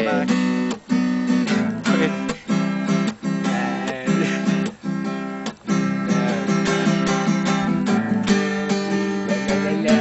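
Acoustic guitar being strummed: chords ring out in a steady rhythm, with a few brief breaks between strokes.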